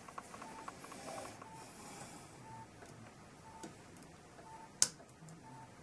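Needle-nose pliers working a small steel retaining clip onto a brass clock movement: light metallic clicks and handling, then one sharp click near the end. A faint short beep repeats about once a second underneath.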